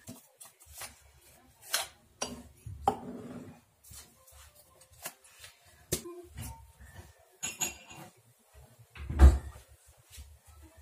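Scattered clicks, taps and light knocks of kitchen items being handled on a counter: a tablet tube, a glass, a wrapper. A heavier low thump comes near the end.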